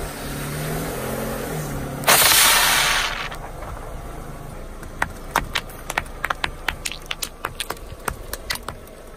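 A car tyre crushes a pressurised container of foam, which bursts with a sudden loud hiss of spraying foam lasting about a second. Later, a quick run of about a dozen sharp pops as the tyre rolls over a row of liquid laundry detergent pods and bursts them one after another.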